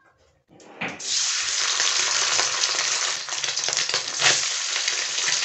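Paneer cubes sizzling in hot refined oil in a kadhai as they are dropped in by hand. The sizzle starts about a second in and holds steady.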